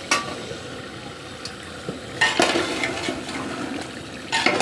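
Metal ladle stirring chicken masala in a large metal pot, scraping against the pot three times, over a steady sizzle of frying.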